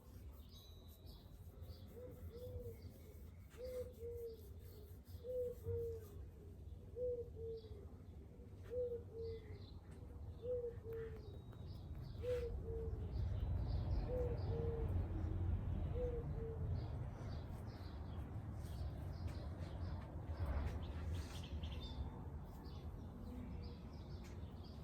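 Birds calling outdoors: a low two-note call repeated about every second and a half, nine times over, with faint high chirps from smaller birds. A low rumble swells behind them in the second half.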